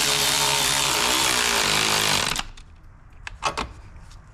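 A cordless power tool runs steadily with a motor whine while tightening a hose clamp on the intercooler piping, then stops suddenly about two seconds in. A few sharp clicks follow.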